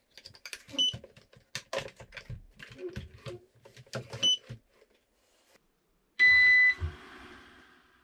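Plastic clicks and knocks as the mop water-tank module is snapped onto a Coredy R750 robot vacuum, with two short high beeps from the robot. About six seconds in a loud beep sounds and the robot starts off in mopping mode with only a faint whirr of its drive, the suction fan left off for the mop insert.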